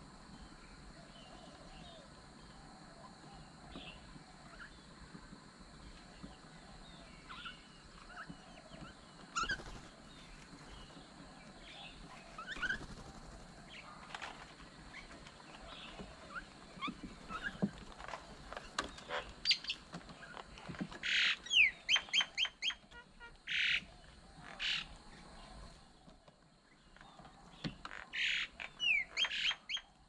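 A flock of mynas feeding at a bird table, calling. Scattered faint chirps give way in the second half to bursts of loud, harsh chattering calls, some falling in pitch.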